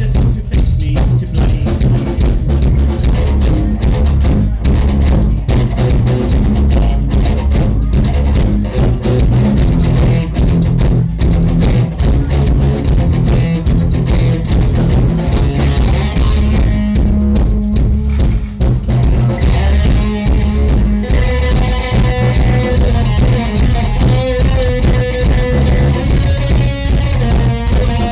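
Live rock band playing an instrumental passage: drum kit and electric guitars, loud and steady. About two-thirds of the way in, a guitar begins playing held notes over the beat.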